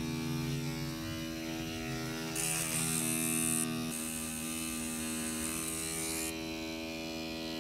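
Tattoo machine buzzing steadily as it works ink into the skin: an even electric hum with a high hiss over it, the lowest part of the buzz dropping away about four seconds in.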